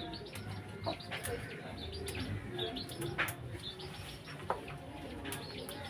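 Birds chirping and calling in short scattered notes, over a low steady background hum, with three sharp knocks or clicks.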